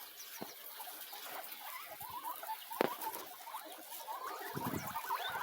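A group of domestic guinea pigs making many short, quick squeaks, with rustling under them and a single sharp click about halfway through.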